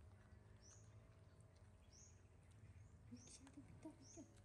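Faint, repeated high chirps of a songbird calling about once a second, each the same short note, over a low steady hum.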